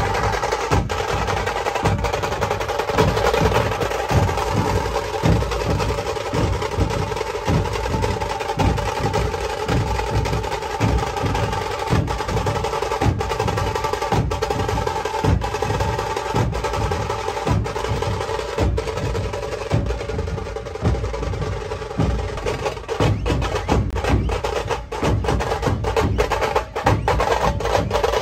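Dhol-tasha ensemble playing: large barrel dhols beaten in a steady driving rhythm under rapid stick rolls on tasha kettle drums.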